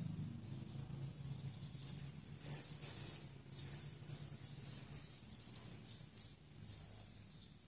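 Several brief, high metallic jingles, about five between two and five seconds in, over a low steady hum.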